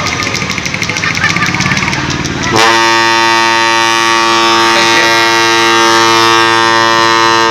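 Crowd background noise with scattered voices, then about two and a half seconds in a loud, steady horn tone starts suddenly and holds at one pitch for about five seconds.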